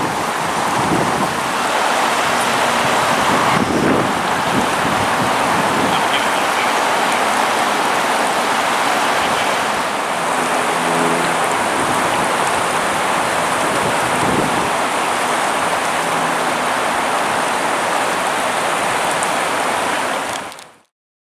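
Steady rushing of river water, an even hiss that cuts off abruptly near the end.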